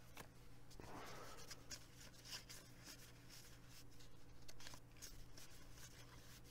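Faint, irregular rustling and ticking of 1991 Bowman cardboard baseball cards being slid off a hand-held stack one at a time, card edge scraping against card.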